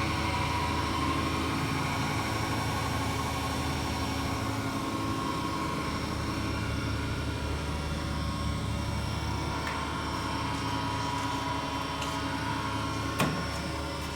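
Van Norman 555 surface grinder's electric motor and wheel spindle running steadily at speed: an even hum with a whine. A single sharp click sounds near the end.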